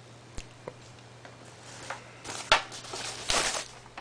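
Cardboard box and packaging handled by hand: a few light clicks, then rustling with a sharp knock about two and a half seconds in and a louder rustle near the end.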